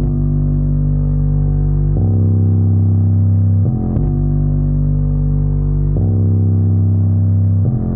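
Music with deep bass notes played loud through a 12-inch double-magnet subwoofer. The long held notes change about every two seconds.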